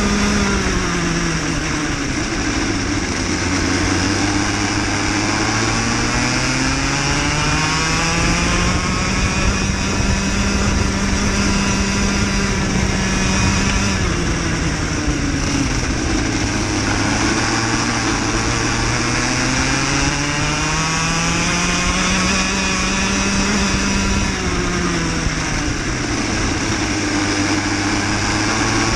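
Cadet kart's small single-cylinder engine heard onboard, its pitch dropping as it slows into a corner and climbing again as it accelerates out, three times over. A steady rush of noise runs underneath.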